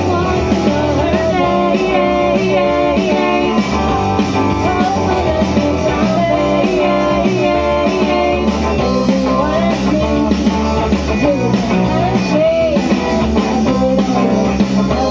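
A rock song with guitar plays throughout, a melody line bending over a steady bass.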